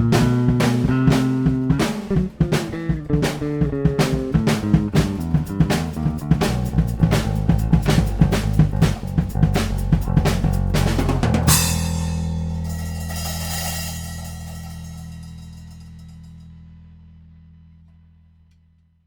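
Instrumental progressive rock fusion played on electric guitar (a Harley Benton PRS-style guitar through a Tech 21 SansAmp GT2), Fender Jazz Bass and a drum kit, with busy drumming. About eleven seconds in the band hits a final chord with a cymbal crash that rings and slowly fades out.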